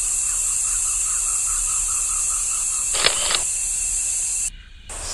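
Loud, steady high-pitched insect chorus. A quick series of short repeated calls comes early on over the chorus. About three seconds in there is a brief sharp double click, and the sound cuts out for a moment near the end.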